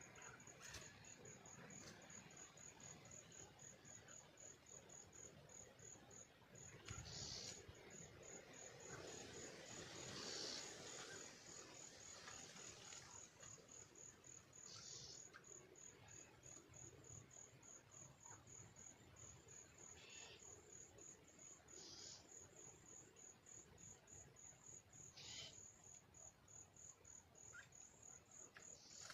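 Faint cricket chirping: a steady, even train of high-pitched pulses, a few each second, with several short higher blips now and then.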